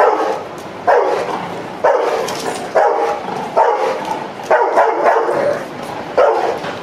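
A dog barking repeatedly at a person, about one bark a second.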